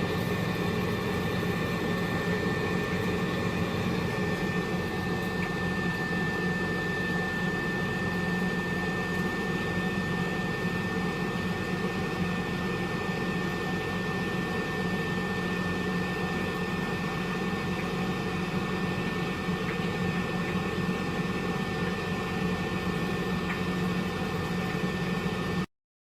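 COSORI dual air fryer running on preheat: a steady whirr of its fan with a low hum and a thin high whine. The owner finds it really noisy for an air fryer. It cuts off suddenly near the end.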